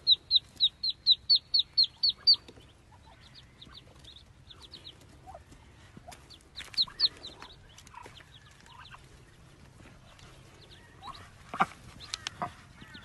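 Ducklings peeping: a rapid run of high, short peeps, about five a second, for the first couple of seconds, then scattered peeps with a brief flurry midway. A few sharp knocks come near the end.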